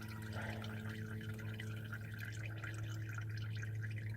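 Warm used engine oil draining in a steady stream from the oil-pan drain hole into a drain pan, with fine continuous splashing and dripping. A steady low hum runs underneath.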